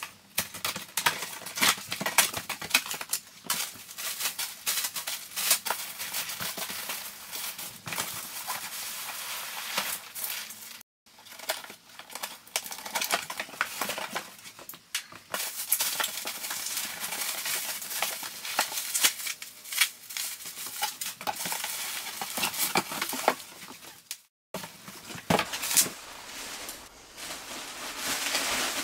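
Unboxing noises: a blade slitting packing tape on a cardboard box, cardboard flaps scraping and rustling, then packing peanuts and bubble wrap crinkling and crackling as a computer is pulled out, a dense run of clicks and crackles broken twice by a brief silence.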